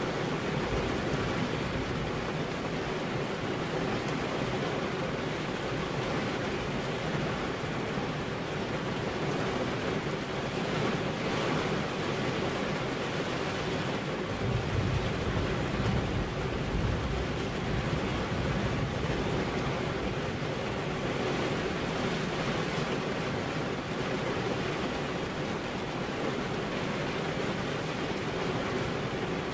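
Steady rain falling, an even hiss throughout.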